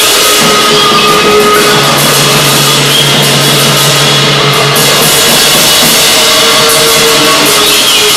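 Loud, dense noise-rock improvisation: drums and cymbals played in a continuous crashing wash through delay and amplifiers, with steady droning tones held underneath.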